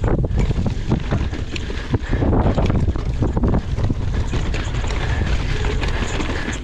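Mountain bike descending a rough trail at speed: wind buffeting the microphone over a low tyre rumble, with the bike clattering over bumps.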